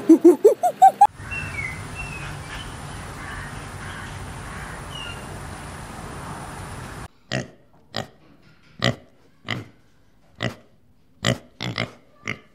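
Golden snub-nosed monkey calling with wavering, rising wails for about the first second. Then a steady outdoor hiss with a few faint high chirps. From about seven seconds in, wild boar piglets grunting, about nine short separate grunts.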